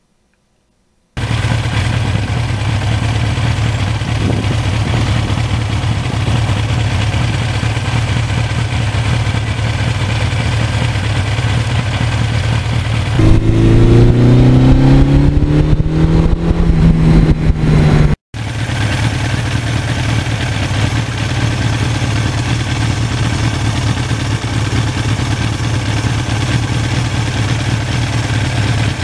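1982 Suzuki GS1100E's air-cooled inline-four running under way. About 13 seconds in it gets louder and climbs in pitch for several seconds as the bike accelerates, then the sound cuts out for an instant and settles back to a steady cruise.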